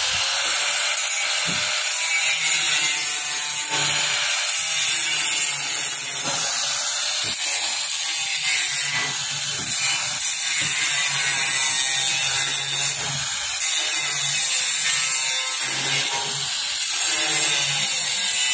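Electric angle grinder with a thick cutting disc grinding through the welds on steel roof trusses, running steadily with a few brief dips in level as the disc bites into the metal.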